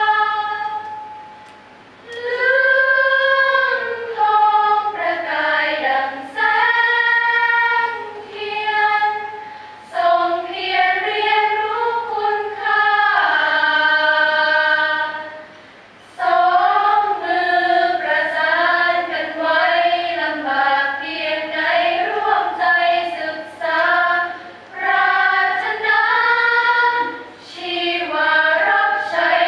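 Women's choir singing a cappella in several-part harmony, in sustained phrases with two short breathing pauses, about two seconds in and again around sixteen seconds.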